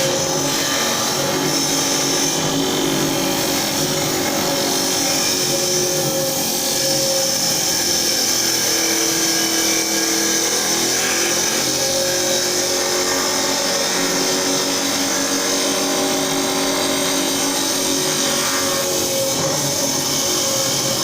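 Wood lathe running steadily, with a chisel cutting into the spinning wood: a continuous machine hum with a few steady tones and a hiss of cutting.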